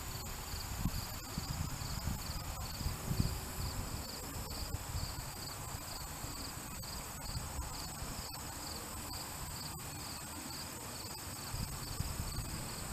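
Crickets chirping in a steady, regular rhythm, about two to three chirps a second, over a continuous higher insect trill and a low rumble.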